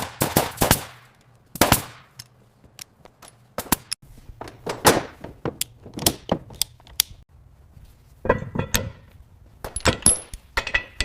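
A series of sharp, irregular knocks and clicks, some with a short ringing tail, with a busier cluster of them near the end.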